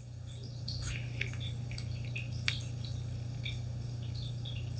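Faint small clicks and ticks of playing cards being handled, with a sharper click about two and a half seconds in, over a steady low hum.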